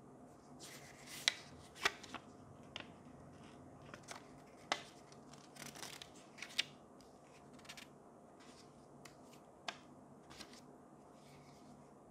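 Pages of a small paper booklet being flipped and riffled by hand: a string of crisp paper snaps and short rustles, the sharpest about a second and two seconds in, over a faint steady hum.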